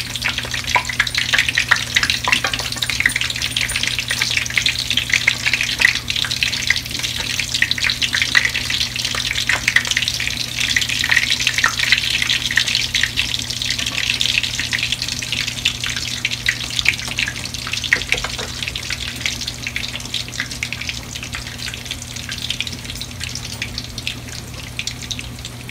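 Bluefish cakes shallow-frying on their second side in hot peanut oil in a skillet: a dense sizzle full of crackling pops, easing off a little toward the end. A steady low hum runs underneath.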